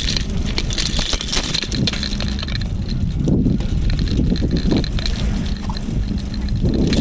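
Riding a bicycle on a concrete road: wind buffeting the microphone over the steady rumble of the tyres, with scattered clicks and rattles from the bicycle, most of them in the first couple of seconds.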